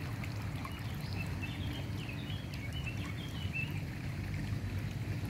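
Shallow river running over stones: a steady rush of flowing water, with a few short high chirps in the first half.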